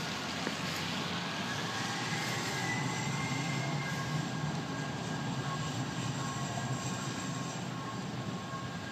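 TRAX light-rail train rolling slowly along its street track, a steady running noise with a faint high whine that rises in pitch about two seconds in.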